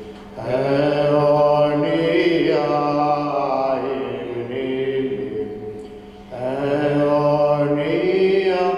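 Slow Byzantine chant of a Greek Orthodox funeral service, sung in long held phrases with brief pauses about half a second in and about six seconds in.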